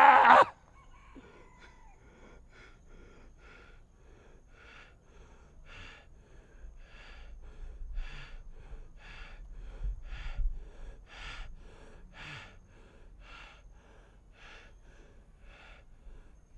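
A man breathing heavily in a steady rhythm, about two breaths a second, after a sung phrase cuts off just at the start. The breaths grow louder toward the middle and ease off near the end.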